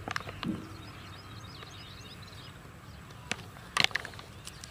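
Foil-lined baking soda packet crinkling and paper rustling as powder is poured out and the paper is folded, with a few sharp crackles near the end. Faint bird chirps behind.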